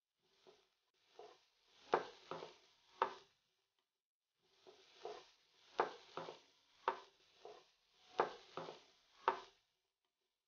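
A wooden spatula stirring chopped onions sautéing in ghee in a granite-coated nonstick pan: about a dozen short scraping strokes, several in quick pairs, each with a brief sizzle.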